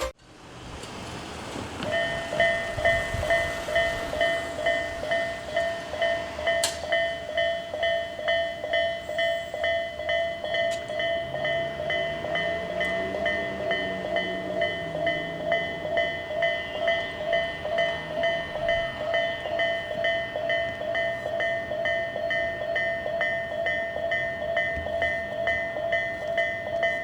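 Japanese level-crossing warning alarm (Tobu A-type tone) starting about two seconds in, ringing a steady electronic ding-ding about twice a second. Midway a low hum rises and falls under it as a train passes over the crossing.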